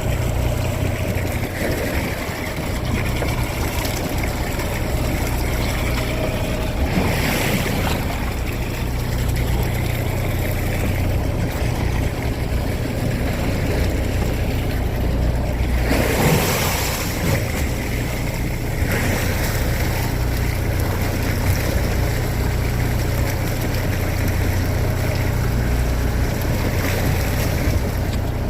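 Fishing boat's engine running steadily under sea and wind noise, with two louder whooshes about seven and sixteen seconds in.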